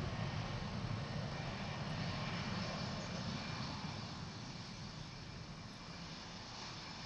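Boeing 717's rear-mounted Rolls-Royce BR715 jet engines running: a deep rumble under a steady hiss, slowly growing fainter.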